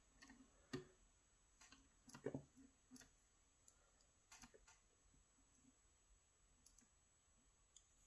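A handful of faint, irregular small clicks of steel lock-picking tools against the cylinder of an Evva EPS slider lock, the strongest about a second in and just after two seconds.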